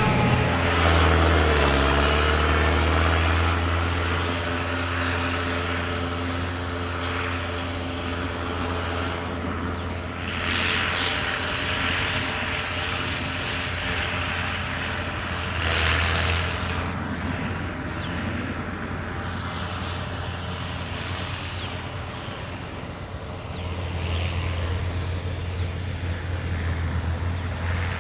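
Engine of hay-harvesting farm machinery running steadily with a low drone. Its pitch drops within the first couple of seconds, and it swells louder twice near the middle.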